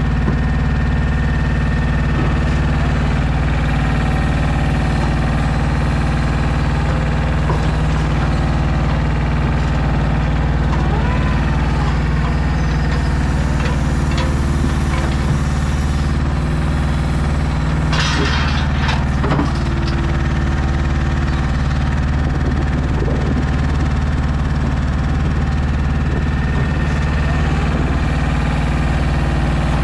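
DAF XF 480 truck's diesel engine running steadily to drive the Kennis 14R loader crane's hydraulics, a loud even drone holding several steady tones as the crane works. A short rushing noise comes about eighteen seconds in.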